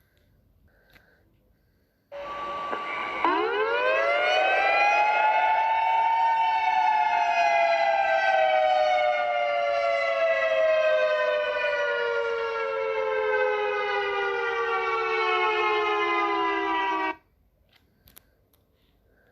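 Civil defense siren in an emergency alert. A brief steady tone comes about two seconds in. Then the siren rises quickly in pitch over about three seconds and slowly falls for about ten more, sounding several tones together, until it cuts off suddenly.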